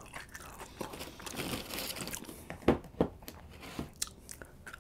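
Aluminum foil crinkling softly under the burritos, with scattered small clicks and a couple of sharper ones near the middle.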